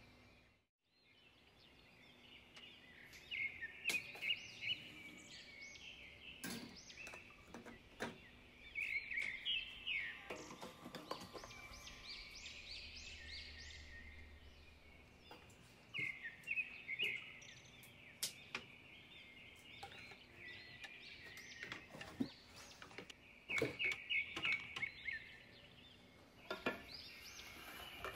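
Small birds chirping and twittering in quick repeated bursts, with a few sharp clicks mixed in.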